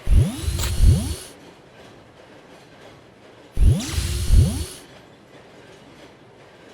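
Cartoon sound effect played twice, about three and a half seconds apart: each time a pair of low thumps, each sliding quickly upward in pitch, with a thin high tone above them.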